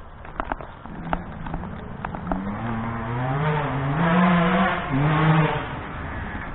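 2007 Yamaha YZ125 two-stroke motocross engine revving hard on the pipe, its pitch climbing in steps as the rider works through the gears. It grows louder to a peak about four to five seconds in, dips briefly, then fades.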